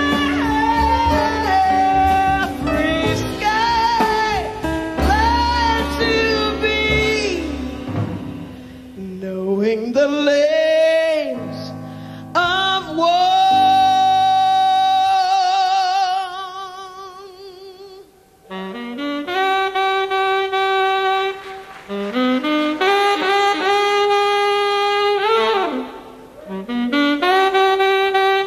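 Live big band jazz with a saxophone carrying the lead. After the full band plays, it thins out to leave a wide-vibrato solo line over sparse accompaniment, and sustained horn notes come back in near the end.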